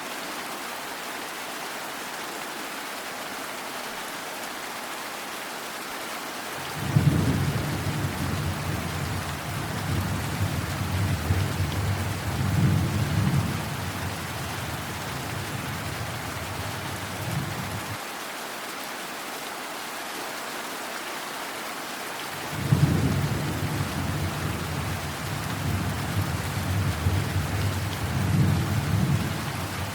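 Steady rain with two long rolls of thunder: the first breaks sharply about seven seconds in and rumbles for some ten seconds, the second breaks about two-thirds of the way through and rumbles on to the end.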